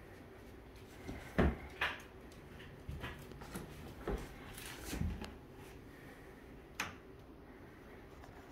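A handful of scattered, irregular knocks and thumps, like footsteps and handling while moving through the rooms. The loudest comes about one and a half seconds in, with another sharp one near seven seconds.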